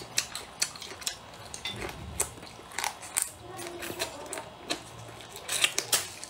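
Close-up eating sounds: chewing and mouth smacks as rice and braised meat are eaten off chopsticks and from bowls. They form an irregular patter of sharp clicks, with a denser cluster near the end.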